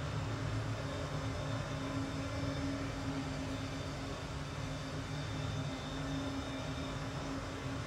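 Cardio exercise machine running with a steady mechanical hum.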